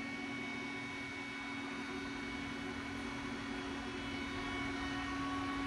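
Steady machine hum: one constant low tone over an even hiss, growing slightly louder near the end.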